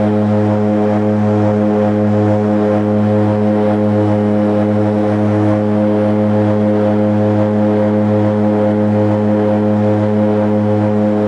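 Steady drone of a de Havilland Canada DHC-6-300 Twin Otter's propellers and PT6A turboprop engines at climb power, heard from inside the cabin beside the propeller: a deep, even hum with several steady tones stacked above it.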